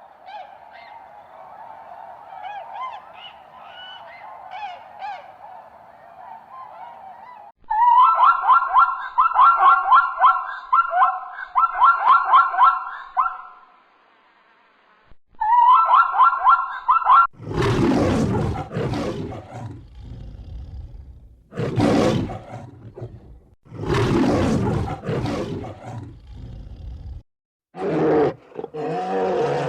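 A run of animal calls. First come pitched calls, quick and repeated from about 8 seconds in. Then, from about halfway, several long, loud, deep roars follow one another with short gaps between them.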